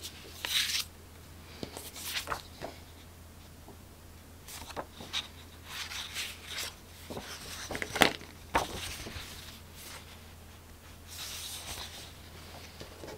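Paper card stock being handled and slid across a cutting mat: scattered rustles and scrapes with a few sharp clicks and taps, the loudest about eight seconds in. A faint steady low hum runs underneath.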